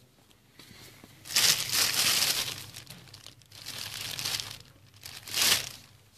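Plastic crinkling close to the microphone in three bursts: a long one, a shorter one, and a brief sharp one near the end.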